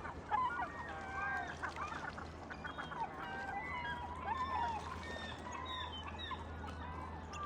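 A flock of birds calling over each other, many short overlapping calls that slide up and down in pitch, over a steady low hum.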